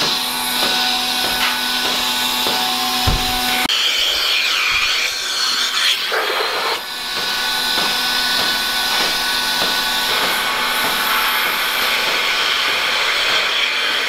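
Dairy milking parlour's vacuum system running: a steady hiss and hum from the vacuum pump and the milking units on the cows' teats. For the first few seconds there is a regular ticking, about two or three a second, under a steady tone; after that the hiss runs on smoother.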